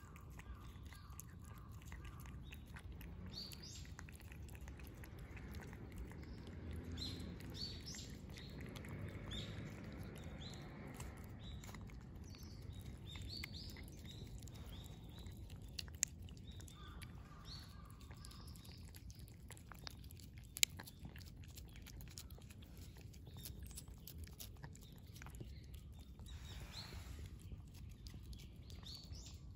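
Stray cats licking and chewing purée from a CIAO Churu squeeze-tube cat treat, with soft wet licking and mouth sounds. Small birds chirp in the background. There are two sharp clicks, one about halfway through and another a few seconds later.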